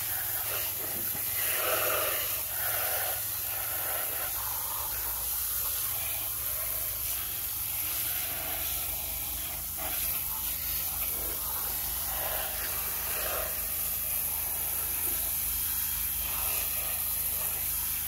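Water spraying steadily from a hand-held hose nozzle and splashing onto plastic toy trucks, rinsing the mud off them.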